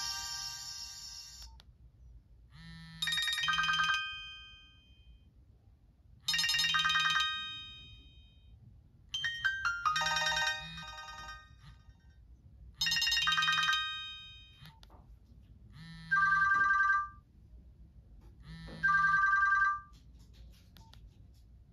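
Nokia X1 ringtone: a short phrase of bright electronic chime tones that repeats about every three seconds, with pauses between. The last two repeats are a simpler two-note figure. The end of a different ringtone's busier melody cuts off about a second and a half in.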